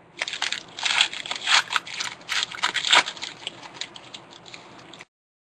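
Shiny foil trading-card pack wrapper being torn open and crinkled by hand, in irregular crackling rips. The sound cuts off suddenly about five seconds in.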